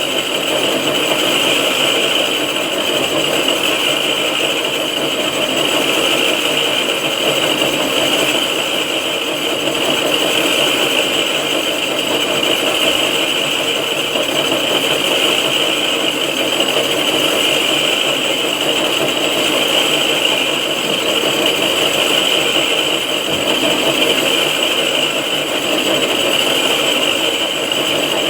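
6R12 vertical milling machine running steadily while milling a cylinder head, a constant high whine over a rattling cutting noise.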